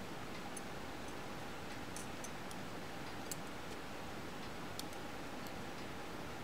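Steel double-pointed knitting needles clicking lightly against each other as stitches are knitted: a few faint, irregular ticks over a steady background hiss.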